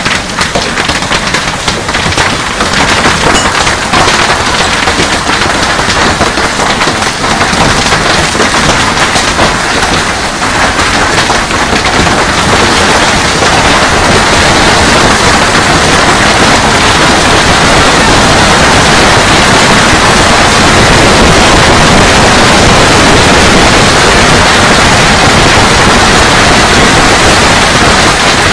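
Heavy hailstorm: a dense clatter of countless hailstones pelting down. It starts as many separate hits and, about halfway through, thickens into a louder, unbroken wash of impacts.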